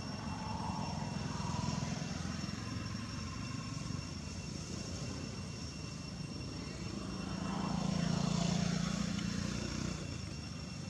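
A motor engine droning at low pitch, swelling twice and loudest about eight seconds in, as if passing by.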